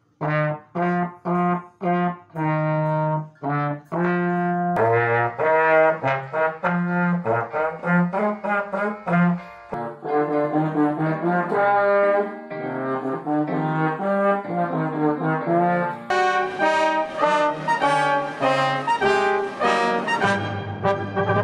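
Trombones played by young learners, simple tunes in short clips spliced one after another: detached single notes at first, then quicker melodic phrases. Near the end it cuts to a fuller, denser sound with a steady low note underneath.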